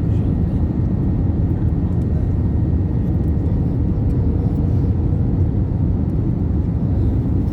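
Steady roar of an Airbus A320 heard from inside the cabin: engine and airflow noise, deep and unchanging, with faint steady whining tones over it.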